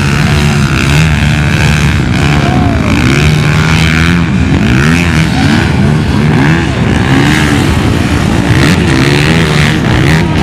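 Several vehicle engines revving and accelerating at once, their pitches repeatedly rising and falling and overlapping, over a steady low engine drone.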